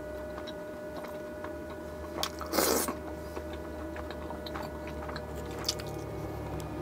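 Close-miked chewing and biting of chicken, with small wet mouth clicks, over a steady low hum. A brief, louder rushing sound comes about two and a half seconds in.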